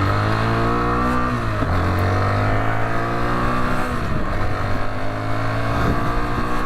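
Rieju Adventura 125 motorcycle engine accelerating through the gears, heard from the rider's seat. The revs climb, fall sharply at a gear change about one and a half seconds in and again about four seconds in, then climb again.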